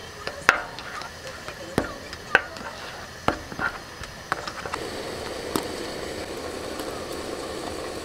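A thin metal chopstick clicking and scraping against a plastic tub while stirring octopus with wasabi, about five sharp clicks. About four and a half seconds in, this gives way to the steady bubbling of a pot of ramen boiling.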